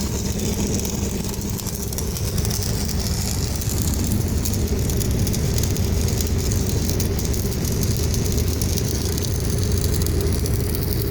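Pile-driving rig's diesel machinery running with a steady, dense mechanical noise and no separate, evenly spaced hammer blows standing out.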